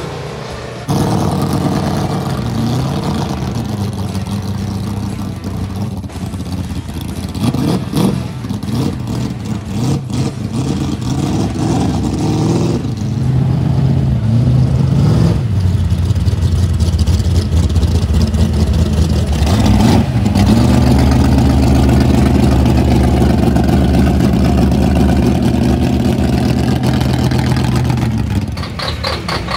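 Hot-rod and race-car engines revving and idling in a run of short clips, with sudden changes from one engine to the next. In the first half the pitch rises and falls with blips of the throttle. From about two-thirds of the way in, one engine idles with a steady, loud, low rumble.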